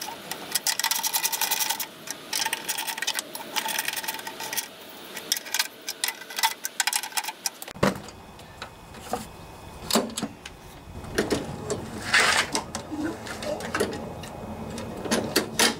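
Hand ratchet clicking rapidly while the lawnmower's engine-cover screws are turned back in by hand. About halfway through it gives way to scattered knocks and handling clatter.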